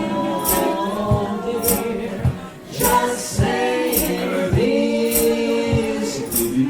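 Three voices singing close a cappella harmony, held chords that slide between notes, over a steady hand-percussion beat of a little under two strokes a second.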